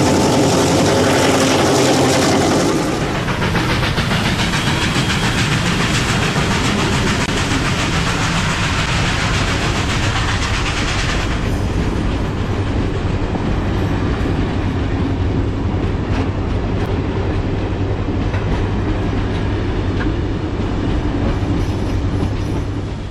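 Passenger carriages of a steam-hauled train rolling past close by, their wheels clicking over the rail joints in a steady rumble. For the first three seconds or so there is a drone's propeller hum instead.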